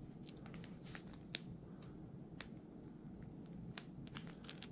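Faint, scattered light clicks from a hard-plastic crankbait and its treble hooks being turned over in the fingers, over a low room hum, with a few quick clicks together near the end.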